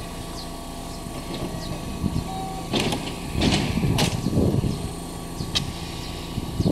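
Sliding passenger doors of a stopped commuter train opening: a sudden rush of noise about three seconds in and a sharp knock a second later, over the standing train's steady hum.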